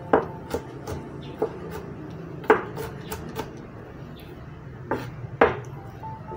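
Chef's knife chopping on a wooden cutting board: about eight sharp knocks at uneven intervals, with a gap in the middle.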